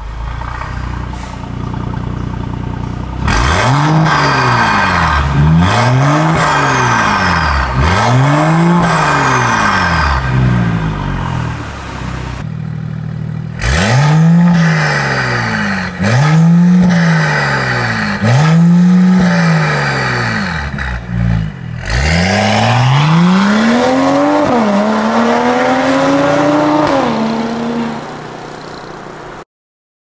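Mercedes-Benz CLS450's turbocharged 3.0-litre inline-six running through its exhaust: idling, then revved in four quick blips, idling again, four more blips, then a longer pull where the pitch climbs, dips briefly and climbs again before dropping back.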